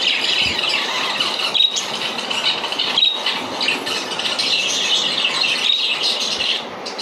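Parrots chattering and squawking continuously, with a few short, sharp calls standing out about a second and a half in, at three seconds and near the end.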